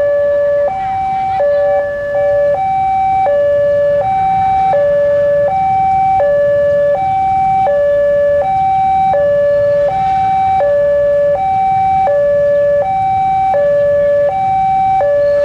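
Railway level-crossing warning alarm sounding a steady two-tone hi-lo signal, alternating about every 0.7 s, as a train approaches; a low rumble from the approaching diesel locomotive builds underneath from about four seconds in.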